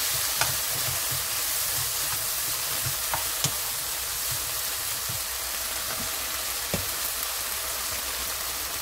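Shishito peppers sizzling in a frying pan with garlic and soy sauce while a wooden spatula stirs them. There are a few light clicks of the spatula against the pan, a couple of them around three and a half seconds in.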